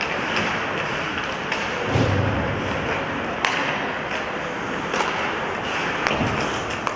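Ice hockey in play: a steady hiss of skates on the ice and arena noise, with sharp clacks of sticks and puck a few times and a heavy thud about two seconds in.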